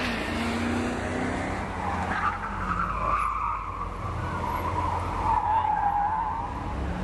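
Dodge Challenger SRT's V8 engine running hard as the car corners through an autocross course, with its tires squealing. The wavering squeal starts about two seconds in and is loudest near the end.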